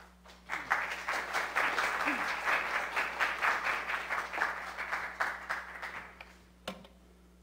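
A small congregation applauding for about five seconds, the clapping thinning out and stopping, followed by a single sharp knock.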